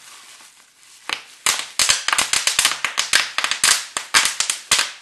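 Bubble wrap squeezed and wrung in both hands, its bubbles popping. The sharp pops begin about a second in and quickly turn into a rapid, irregular string that runs until near the end.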